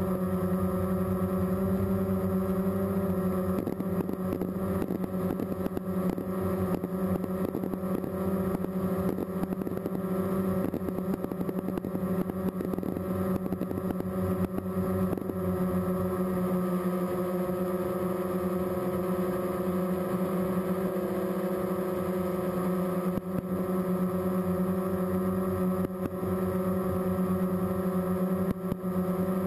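Multirotor drone's motors and propellers humming steadily, shifting slightly in pitch.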